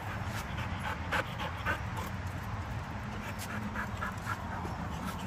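Belgian Malinois panting, with short sharp clicks scattered irregularly through it.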